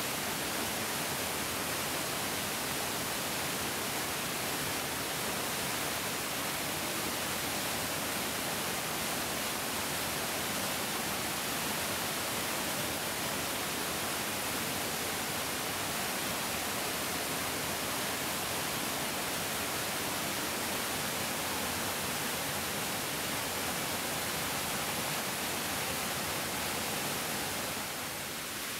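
Mountain stream rushing steadily over rocks, a dense even hiss of flowing water.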